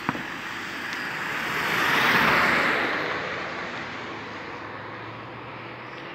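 A vehicle passing by on the road, its noise swelling to a peak about two seconds in and then fading away. A single short sharp crack right at the start.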